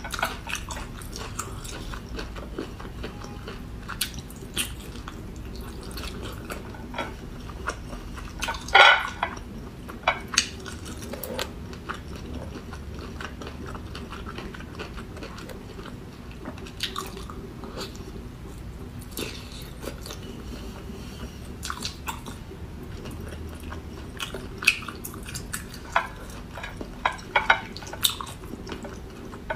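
Close-miked eating sounds of a person chewing boiled cuttlefish: soft wet chewing with scattered lip smacks and clicks. The loudest smack comes about nine seconds in, with a cluster of them near the end.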